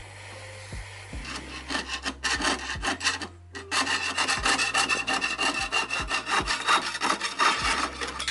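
Jeweler's saw cutting a silver sheet held on a wooden bench pin: rapid back-and-forth strokes starting about a second in, with a short pause a little past three seconds.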